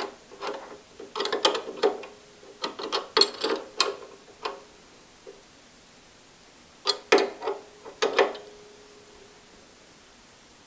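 Ratcheting wrench clicking in short runs as it turns the bolt on the blade guide's back-bearing bracket of a 4x6 horizontal bandsaw, with a pause of about two seconds before a last few clicks.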